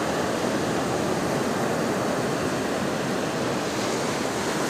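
Steady, even rush of sea surf mixed with wind.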